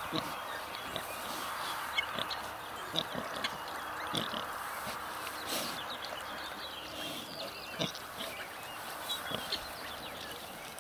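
Nursing sow and her two-week-old piglets grunting and squeaking at the teats: short, irregular grunts and squeaks over a steady hiss.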